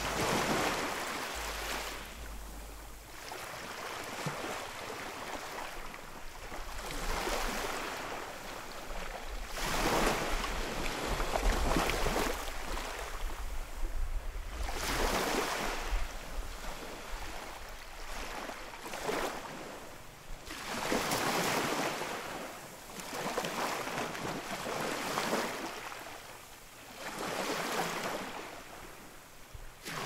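Sea waves washing onto a shore, one surge of surf every few seconds that swells and fades away.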